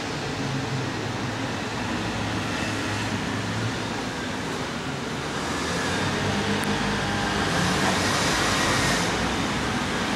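Steady road traffic noise with a low engine hum, swelling louder for a few seconds from about six seconds in.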